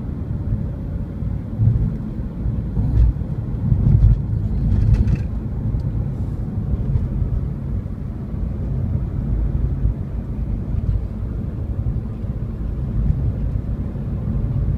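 Steady low rumble of vehicle engines and road noise in traffic, swelling a little louder a few times in the first five seconds.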